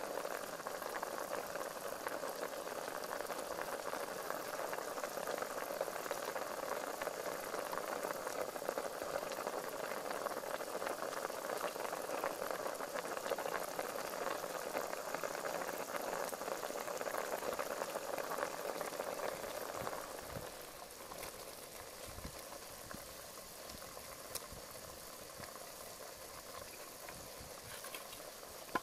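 A pot of fish soup with cauliflower and vegetables at a rolling boil, bubbling steadily. The bubbling grows quieter about two-thirds of the way through, and a single brief knock sounds near the end.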